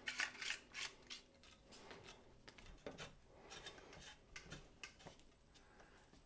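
Faint, irregular clicks and rubbing of a metal broom handle being handled and screwed into its plastic broom head.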